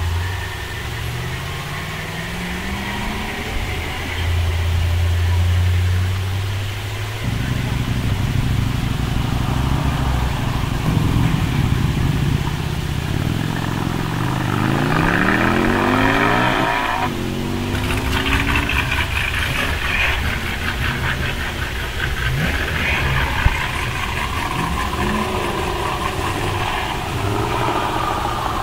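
Car engines revving and accelerating. Their pitch rises through each pull, most clearly at the start and again about halfway through.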